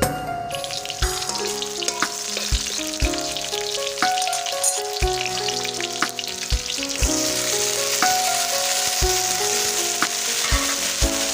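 Food sizzling and frying in hot oil in a pan, the sizzle growing louder about two-thirds of the way through. Background music with a melody and a beat plays over it.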